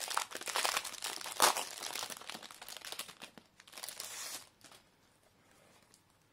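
Clear plastic wrapper crinkling and crackling as it is peeled off a pack of cards. The loudest crackle comes about a second and a half in, and the sound dies away after about four and a half seconds.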